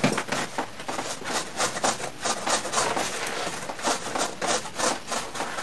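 Rapid, repeated scrubbing strokes as a brush is worked back and forth over the inside of a split air conditioner's indoor unit, around the blower fan, during a hand cleaning.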